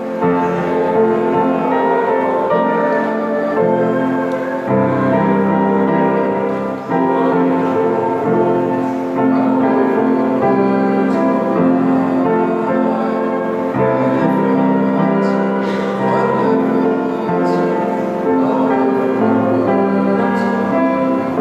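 Slow keyboard music in held chords that change every second or two, in the manner of a hymn played in church.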